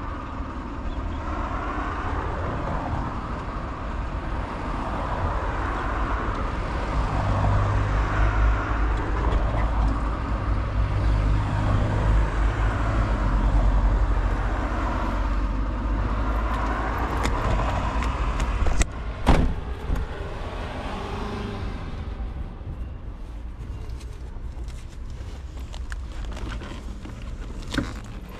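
Wind buffeting and road noise on the camera microphone while riding a Super Soco TC Max electric motorcycle, with a heavy low rumble. There is a sharp knock about 19 seconds in, and the noise drops over the last few seconds.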